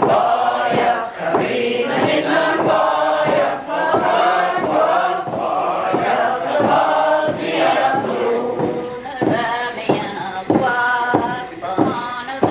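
A group of men and women singing a Gaelic milling song together, with the wool cloth thumped rhythmically on the wooden table, about two thumps a second, in time with the song.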